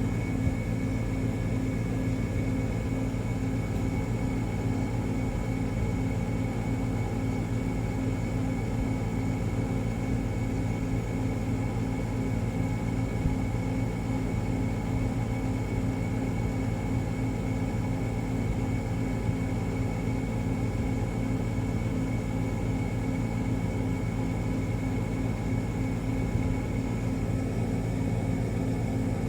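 Steady low mechanical hum made of several unchanging low tones, with no rise, fall or break.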